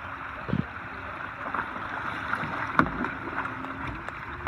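Water sloshing and splashing around a kayak, with a few sharp knocks, the loudest about three seconds in. Under it runs a faint steady hum that steps up in pitch near the end.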